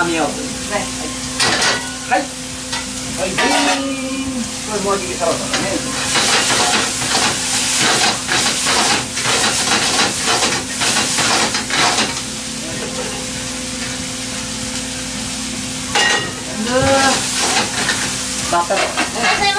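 Rice sizzling as it fries in a frying pan over a gas flame, with a wooden spatula stirring and scraping through it in quick strokes, busiest in the middle stretch. A steady low hum runs underneath.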